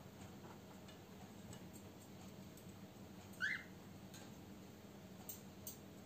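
Cockatiel giving one short chirp about halfway through, with a few faint clicks near the end.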